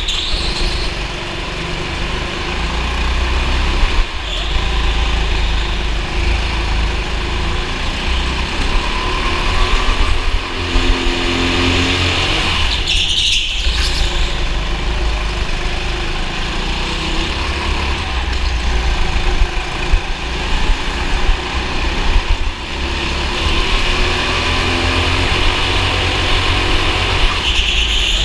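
Go-kart engine running steadily, heard close up from a camera mounted on the kart, with a strong low rumble.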